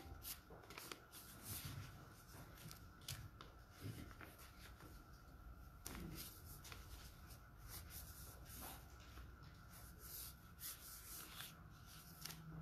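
Near-silent room tone with faint scattered rustles and clicks of paper being handled at a lectern, over a faint steady hum.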